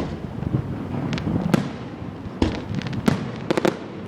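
Fireworks going off: a string of sharp bangs at irregular intervals, with a rapid cluster of cracks about three and a half seconds in, over a continuous rumble of more distant explosions.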